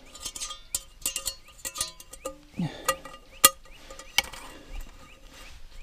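MSR Alpine stainless-steel frying pan and its folding wire handle being handled: a series of light metallic clicks and clinks, several of them ringing briefly, the sharpest about three and a half seconds in.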